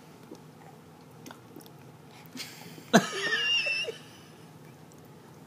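A baby's brief, high-pitched vocal outburst about three seconds in, opening with a sharp click, his reaction to the taste of peach baby food. A few faint clicks come before it.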